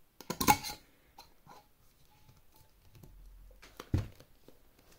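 Hands handling items on a table: a short rustle about half a second in, a few light clicks, and a single sharp knock just before four seconds as something is set down.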